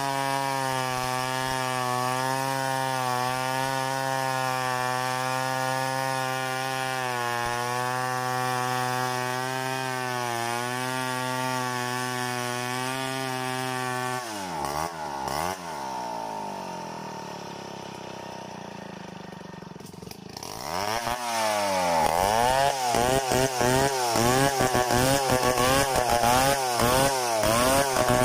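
Stihl 070 two-stroke chainsaw ripping lengthwise through a log, the engine held at a steady pitch under load. About halfway through the pitch swings up and down and drops quieter for a few seconds. It then comes back loud, its pitch rising and falling several times a second as the chain bites and eases in the cut.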